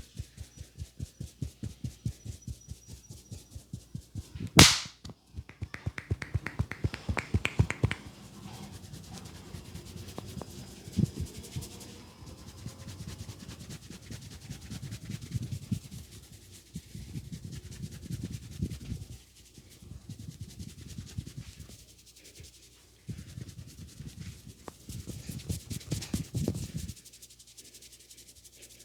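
A barber's hands working a head in a vigorous massage. They pat rhythmically about three times a second, give one loud sharp smack about four and a half seconds in, then do a quick run of strokes. After that they mostly rub and knead over the scalp and hair, with occasional louder pats.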